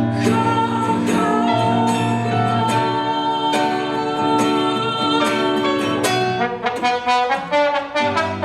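Instrumental break in a live acoustic band performance: a held melody line over strummed guitar. About six and a half seconds in, it turns into a run of short, choppy strokes.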